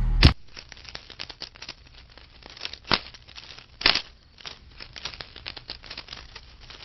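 Dense, irregular small clicks and rattling, like a shaker or crinkling, with a sharp click just after the start and two louder clicks about three and four seconds in.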